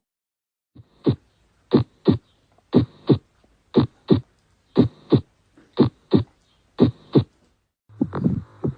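Heart sounds heard through a stethoscope recording: paired 'lub-dub' beats (first and second heart sounds) about a third of a second apart, repeating about once a second, a slow, regular rhythm. Near the end a louder, continuous sound comes in along with the beats.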